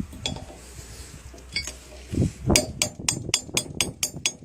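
Steel circlip being fitted into the groove of a universal joint bearing cup: a few light metallic clinks, then a sharp knock about halfway through and a rapid, even run of metal-on-metal clicks, about four a second.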